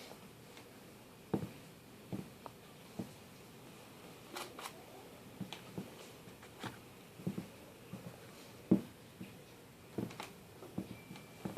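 Scattered soft taps, clicks and rustles of things being handled close by, with a sharper tap about nine seconds in.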